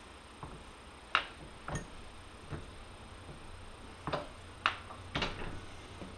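Sharp metal clicks and light knocks, about seven at irregular intervals, as a Fairbanks power hammer cross head casting is shifted and set in place on a Dake arbor press table under the ram. A faint steady low hum runs underneath.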